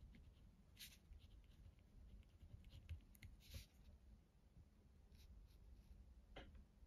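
Faint scratching of a pen writing on paper, in a few short separate strokes.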